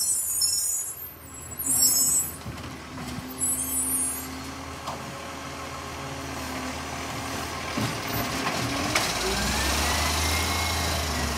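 Side-loader garbage truck working a kerbside bin: short bursts of air hiss in the first few seconds, then a steady engine hum while the arm lifts and tips the bin, a knock about nine seconds in, and the engine building up near the end.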